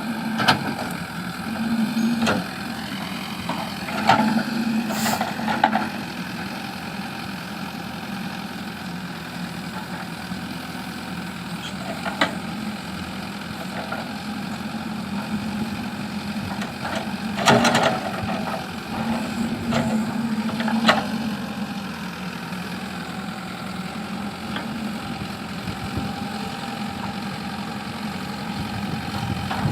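JCB backhoe loader's diesel engine running steadily, with scattered sharp knocks and clanks every few seconds, the loudest about seventeen seconds in.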